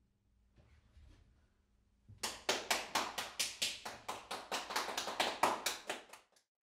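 Applause at the end of a piano performance: hands clapping in an even rhythm, about five claps a second. It starts about two seconds in and cuts off abruptly near the end.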